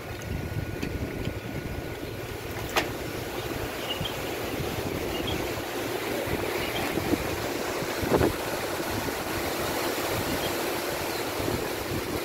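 Strong sandstorm wind rushing through trees and over the microphone, steady with gusts. A sharp knock comes about three seconds in and a louder thump about eight seconds in.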